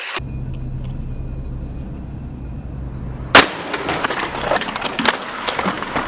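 A steady low hum, then about three and a half seconds in a sudden loud crash followed by a few seconds of rattling and clattering. This is a Dyson Multifloor ball upright vacuum cleaner hitting the ground after being thrown off a roof, its plastic head, bin and handle breaking.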